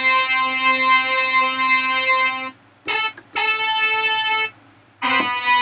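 Software synthesizer in Logic Pro 9 played from a MIDI keyboard: three held notes with a bright, overtone-rich tone. The second note is slightly lower than the other two. There is a short click between the first two notes.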